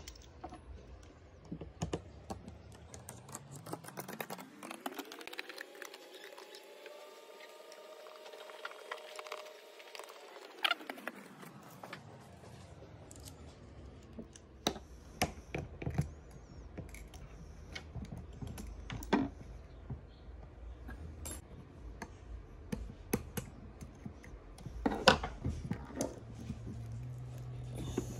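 Scattered small clicks and taps of metal tweezers and tools against an opened iPhone 13 and the work surface, at irregular intervals. A faint hum rises and falls in pitch for several seconds in the first half.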